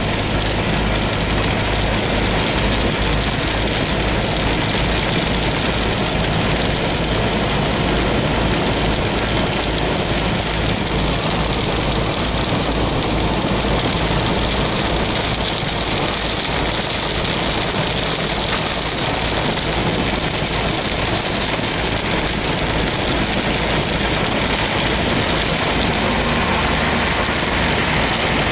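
Steady rain and road noise heard inside a moving car's cabin: rain on the windscreen and body, tyres on the wet road, and the engine running underneath.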